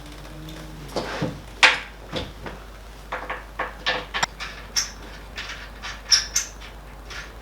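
Irregular short knocks, clinks and squeaks from metal hardware being handled while an awning is fitted to an aluminium roof rack.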